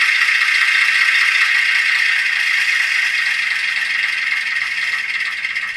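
Simulated diesel engine sound from the M-tronic small diesel sound card in a Gauge 1 Märklin Köf model locomotive, played through its 8-ohm speaker. It idles steadily, then starts to die away about four seconds in as the sound card runs its engine shutdown.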